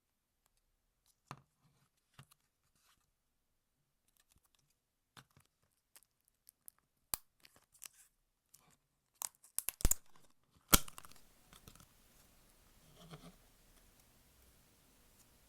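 Slime being stretched and pressed, giving scattered small crackles and pops that grow denser, with a sharp loud pop about eleven seconds in.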